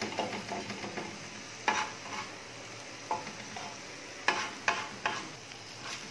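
Metal spatula scraping and clattering on a tawa as it pushes dried-out minced mutton aside to clear a hole in the middle, over a faint steady sizzle of frying. Sharp scrapes come about two seconds in, near three seconds, then three in quick succession just after four seconds.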